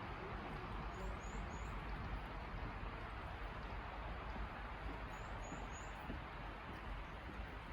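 Steady rush of flowing water from the stream and falls. A small bird calls twice over it, each time a quick run of three high, falling notes, about a second in and again after five seconds.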